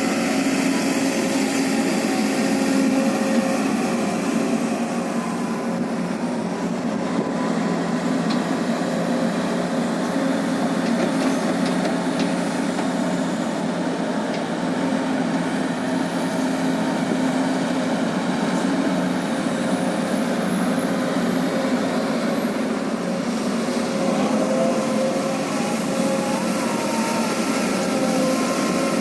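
Diesel engine of a Sumitomo SH210 hydraulic excavator running steadily under working load.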